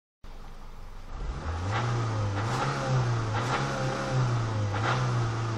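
Renault Mégane II engine running with sharp, irregular knocks about once a second over its steady hum, which grows louder about a second in. The owner is unsure whether the knock comes from the piston pins, the main or connecting-rod bearings, or the camshafts.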